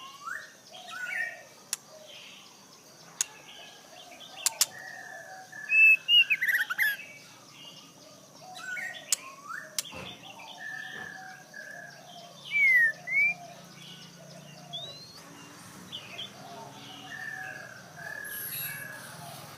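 Shama songbird singing: a varied run of clear whistled notes, rising and falling glides and a few sharp clicks, loudest about six seconds in and again about thirteen seconds in.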